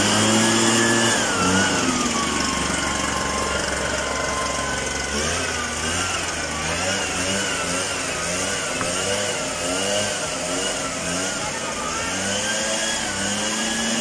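Small engine of a backpack misting machine running continuously while anti-dengue insecticide is sprayed, its pitch wavering up and down.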